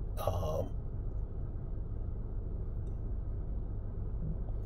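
Low steady background hum with no speech, after a brief short voice sound right at the start.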